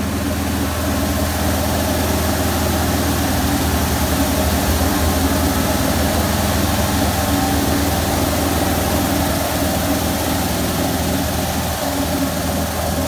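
High-pressure side sprayers of a Mark VII touch-free car wash blasting water onto a pickup: a loud, steady hiss of spray over a steady low machine hum.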